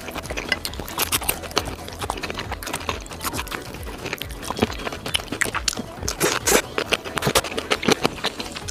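Close-miked mouth sounds of a person chewing noodles: a run of irregular wet clicks and smacks, with chopsticks picking at the plate.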